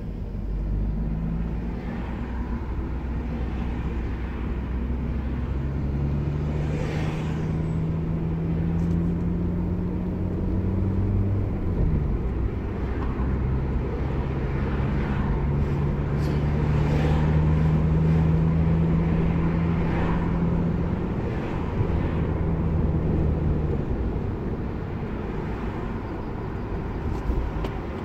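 Car engine and tyre noise at autobahn speed. The engine hum climbs slowly, drops sharply once about twelve seconds in, climbs again, then fades near the end.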